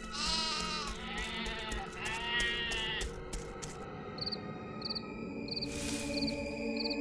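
Sheep bleating: three wavering bleats one after another in the first three seconds, over crickets chirping and soft background music. A brief hiss comes about six seconds in.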